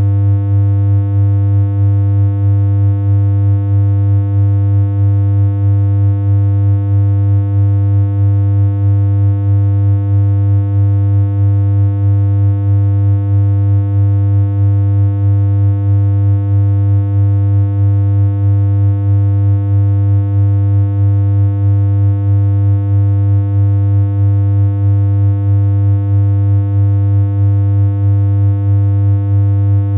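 Synthesized electronic hum: one steady, unchanging low drone rich in overtones, with a slight regular pulse in level.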